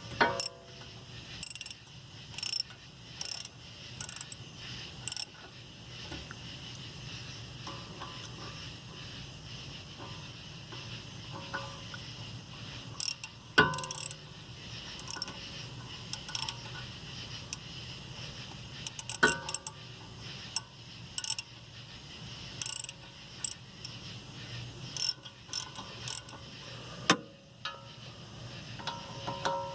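Socket ratchet clicking in short runs as the bolts of a 2007 VW Jetta's front wheel bearing hub are tightened to pull the hub into place, with a few louder knocks of metal tools.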